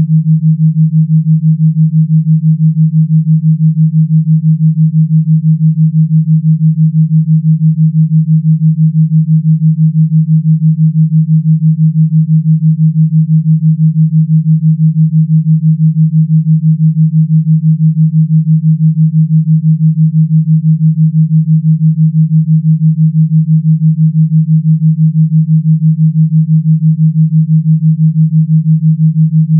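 Electronically generated pure low tone, held steady and pulsing rapidly and evenly in loudness: a gamma-wave tone made for brainwave entrainment.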